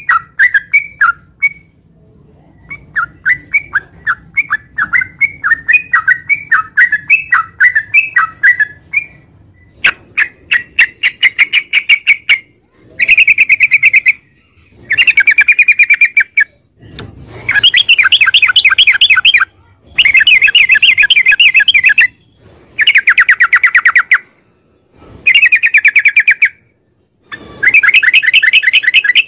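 Yellow-vented bulbul (trucukan) singing. It starts with a run of separate, bubbly chirping notes, then from about ten seconds in gives a string of long, fast trills, each lasting one and a half to two and a half seconds with short pauses between. This is the long-trilled 'ropel' song used as a lure to make other trucukan sing.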